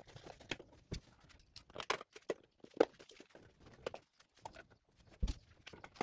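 Faint, irregular small clicks, scrapes and rustles of gloved hands and a hand tool working at a ceiling fan's mounting and its junction-box cover plate, a few sharper clicks standing out.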